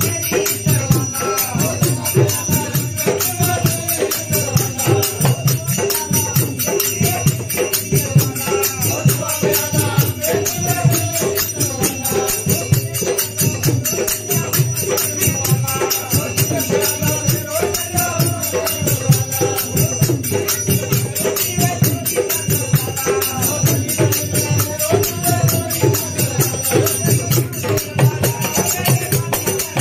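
Group of men singing a devotional bhajan together, accompanied by tabla and a barrel drum (dholak) playing a fast, steady beat.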